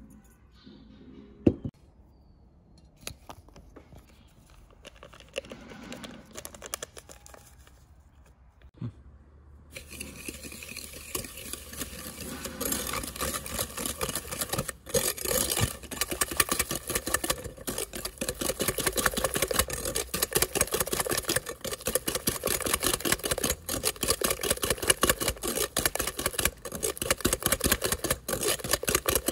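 Eggs and sugar being whisked fast in a glass bowl: after a quiet start with a single sharp tap, a rapid, steady rattle of the whisk begins about ten seconds in and keeps going.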